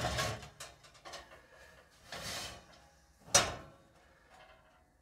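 A hot metal baking mould for an Easter lamb is taken out of an oven with cloth oven gloves. The rack slides out with a scrape, there are small metal knocks and cloth rustling, and a sharp metal clank a little over three seconds in as the mould is lifted off the roasting tray.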